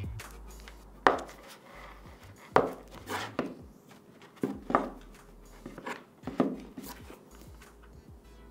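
A shrink-wrapped cardboard camera box set down on a wooden tabletop and handled: a string of irregular taps and knocks, the loudest about a second in as it lands, then several more as it is picked up and turned over.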